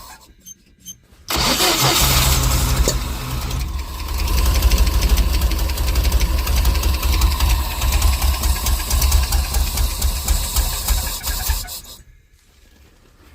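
UAZ Bukhanka van engine cranked on the starter about a second in, catching and running for about ten seconds, then shut off near the end.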